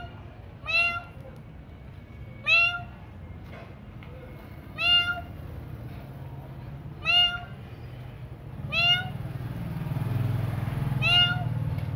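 A cat meowing, six short calls about two seconds apart, each rising quickly in pitch.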